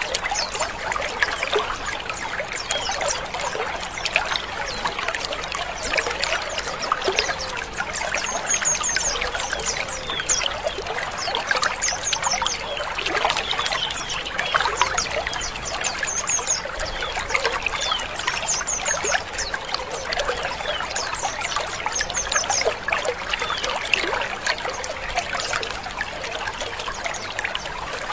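A flock of white-eyes (pleci) chattering together: a dense, continuous mass of overlapping short, rough chirps, with brief clusters of quick high notes breaking through every few seconds.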